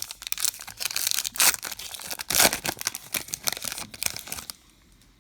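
A trading card pack wrapper being torn open and crinkled by hand, a dense crackling that stops about four and a half seconds in.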